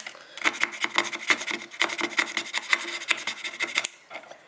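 Rapid back-and-forth scraping of burnt heatsink compound off the main chip of a Netgear GS108 gigabit switch, stopping about four seconds in.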